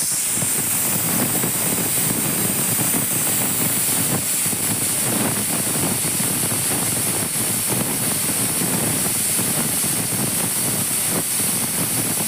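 Aluminium pressure cooker hissing steadily as steam escapes at its weight valve, with a fine fluttering rattle under the hiss. The cooker is up to pressure after its first whistle, the gas turned down to let it cook on.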